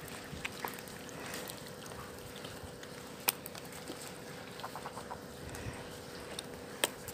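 Quiet background hiss with a faint steady hum, broken by scattered sharp clicks and a short run of small ticks; two clicks, one about three seconds in and one near the end, stand out.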